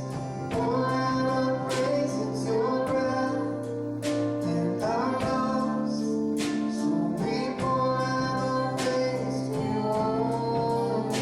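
Worship song: a woman singing a slow melody over strummed guitar.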